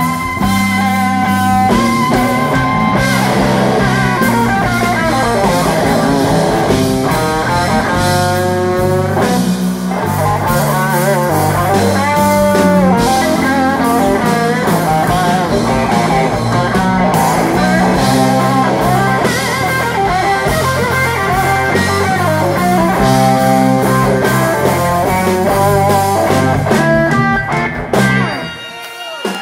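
Live blues-rock band playing electric guitar, electric bass and drum kit, the guitar playing lead lines with bent, wavering notes over a steady bass line. The band stops abruptly about a second before the end.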